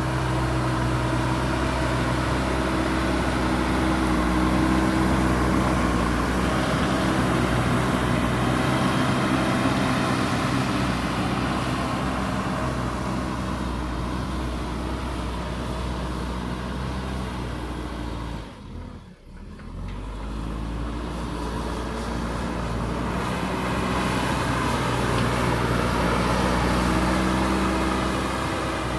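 JCB backhoe loader's diesel engine running under working load, its note rising and easing as the machine digs and throws out loose soil. The sound drops out briefly about two-thirds through.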